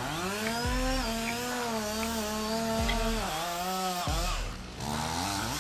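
Two-stroke chainsaw running at high revs, its pitch dropping and climbing back a few times as the throttle is eased off and opened again.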